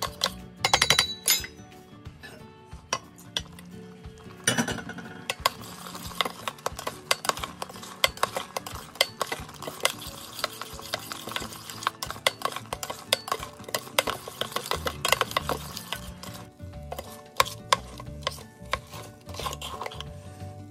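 Metal spatula stirring a thick besan-and-ghee mixture in a stainless steel Instant Pot inner pot, with frequent scrapes and clinks against the pot's sides and bottom. Louder clatter comes about a second in and again around four and a half seconds.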